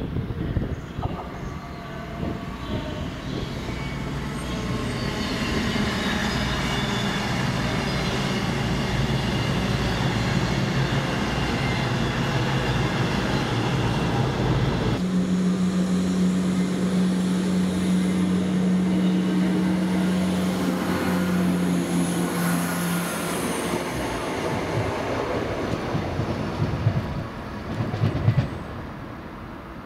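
Diesel trains running through a station: a steady engine drone, then, after an abrupt change about halfway, a stronger engine tone with a high squeal. A few knocks come near the end before the sound drops away.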